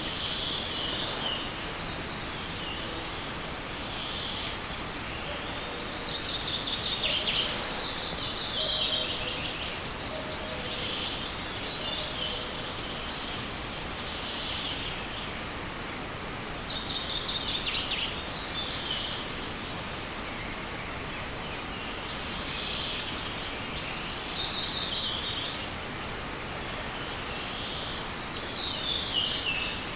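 A songbird singing the same short descending, trilling phrase over and over, each lasting about two to three seconds and coming every five seconds or so, over the steady rush of a forest stream.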